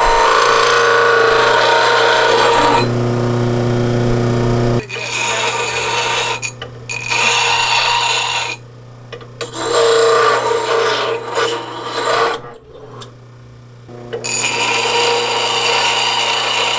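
A power tool runs with a steady motor hum and grinds or rasps against a workpiece in several passes, with short pauses about halfway and again near the end.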